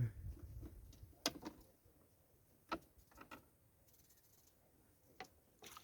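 A few faint, separate clicks and knocks, with a low rumble during the first second.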